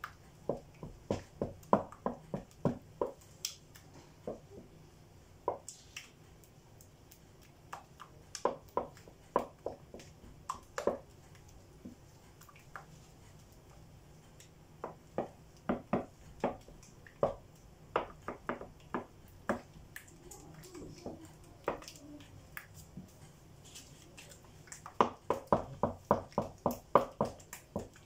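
Wooden spoon beating crêpe batter in a bowl: runs of quick clicking taps of the spoon against the bowl, in several bursts with pauses between, the fastest run near the end. The batter is being worked to get the lumps out.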